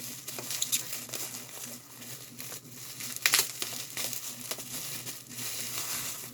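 Packaging crinkling and rustling as a mailed package is unwrapped by hand, with irregular crackles and a louder one about three seconds in.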